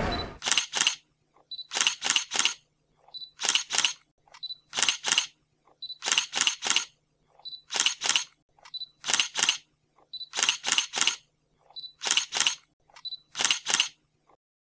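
Camera shutter clicks, a sound effect repeated about ten times in quick groups of two or three sharp clicks every second and a half or so, with silence in between.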